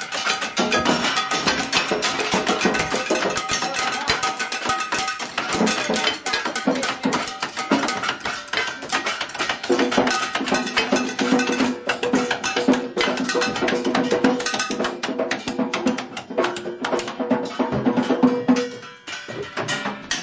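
Rapid, dense percussion drummed on kitchen objects and utensils, many quick hits in a busy rhythm, with some held pitched notes in the second half. It drops off briefly near the end before picking up again.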